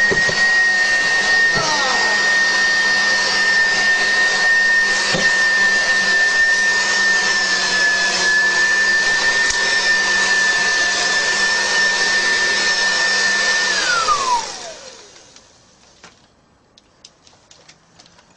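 Vacuum cleaner running with a steady high-pitched whine over its airflow noise. About 14 seconds in it is switched off, and the motor's whine falls away as it spins down.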